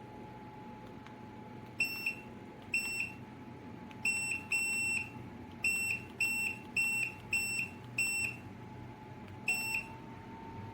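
An electric tower space heater beeping about ten times in an uneven run, short identical high beeps with one longer one, as its buttons or remote are pressed, over the steady hum of the running heater.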